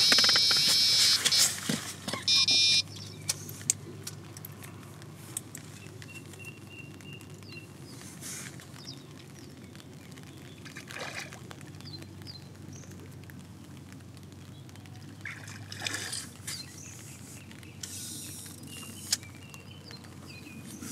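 Electronic carp bite alarm sounding a fast run of high beeps that merge into one tone, then a second short burst about two seconds later. Then quiet outdoor background with a few brief rustles and knocks.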